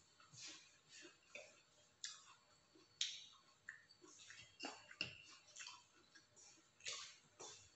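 Quiet eating sounds: a spoon making a series of light, irregular clicks and scrapes against a small bowl of sauce, then mouth sounds of biting and chewing chicken satay near the end.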